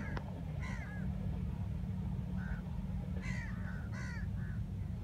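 Crows cawing: about seven short, harsh calls, most of them bunched together in the second half, over a steady low rumble.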